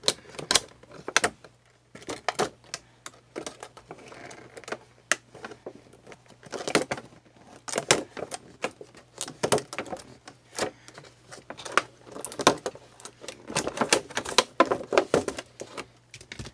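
Scissors snipping through a doll box's clear plastic window, an irregular string of sharp snips with the stiff plastic crackling as it is bent and pulled.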